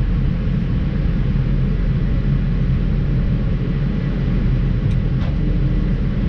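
Tractor engine running steadily at constant speed while hay baling is under way.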